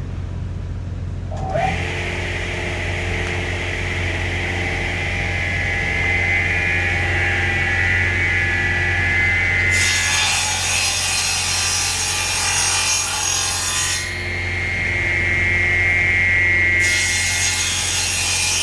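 Electric woodworking saw running with a steady motor hum while its blade cuts through wood. The cut gets louder and hissier about ten seconds in, eases off around fourteen seconds, and picks up again near the end.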